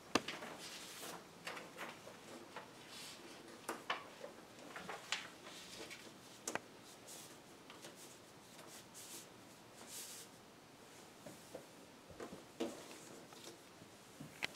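Faint rustling and scattered light taps of paper photo cards being handled and pressed onto a classroom board.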